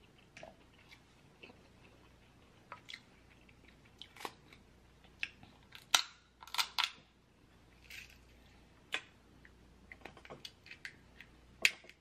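Close-up eating of boiled crab: scattered sharp cracks and snaps of crab-leg shell being broken apart by hand, with chewing and mouth sounds between them. The loudest cracks come about halfway through and again near the end.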